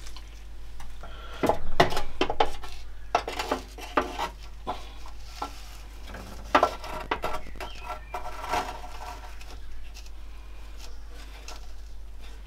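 Irregular metallic clicks, knocks and rattles as a replacement heater matrix is handled and pushed into a classic Mini heater box, busiest in the first few seconds.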